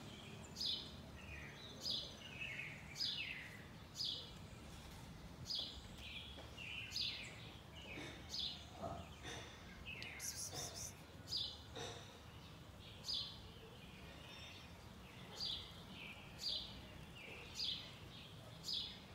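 A bird calling over and over: a short high call about once a second, many of them followed by a quick falling note.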